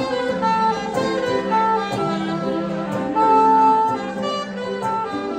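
Saxophone playing a melody of held notes over a strummed acoustic guitar, live.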